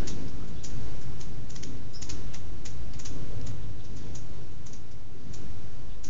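Hummingbirds at a feeder making short, sharp chip calls at irregular intervals, a few a second, over a steady low rumble.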